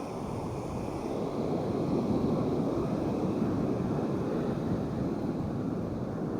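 Ocean surf washing up the beach: a steady rush that swells a little about a second and a half in.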